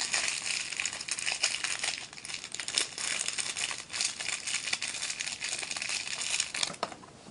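Small clear plastic bag crinkling and rustling in the fingers as airsoft BBs are shaken out of it into a hand, with many small clicks. It grows quieter near the end.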